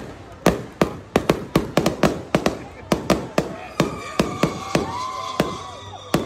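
Aerial fireworks exploding in quick succession: sharp bangs about four a second for the first three and a half seconds, then fewer, with a new volley near the end.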